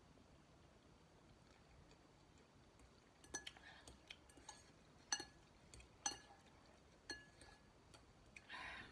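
Metal fork clinking against a glass bowl of noodles: four sharp, ringing clinks about a second apart, starting about three seconds in. Near the end comes a short breathy sound.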